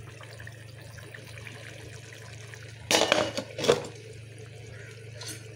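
Fish curry simmering in a pot on the stove, a steady bubbling hiss over a low hum, with two brief loud clatters of cookware about three seconds in.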